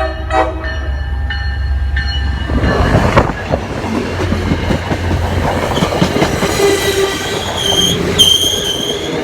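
MBTA commuter train running into the station past the platform: a deep diesel rumble, then a loud rush with wheels clattering over the rails from about two and a half seconds in, and high brake squeal building toward the end as the train slows to stop.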